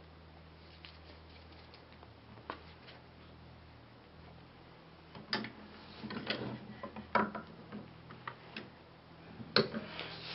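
Plywood boards being stacked and set down in a small printing press over an inked linoleum block, ready for pressing. One faint tap early, then from about five seconds in a run of sharp wooden knocks and clatter, the loudest about seven seconds in and again near the end.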